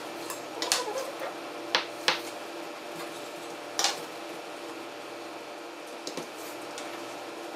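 Gloved hands pressing and squaring the edges of a sheet of puff pastry dough on a silicone baking mat: a few short taps and knocks in the first few seconds, over a steady low hum.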